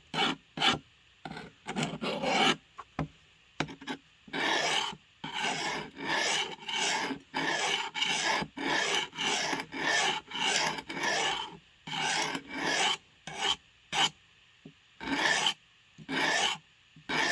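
A blade being sharpened by hand, its steel scraping back and forth across an abrasive: a few short strokes, then a steady run of about two strokes a second.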